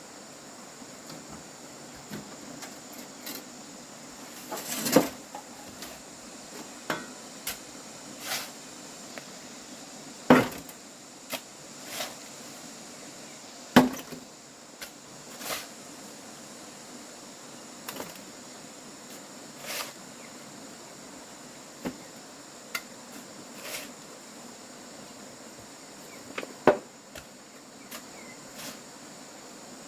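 Irregular knocks and thuds, a few much louder than the rest, like hand tools striking wood during farm work. A steady high-pitched insect drone runs underneath.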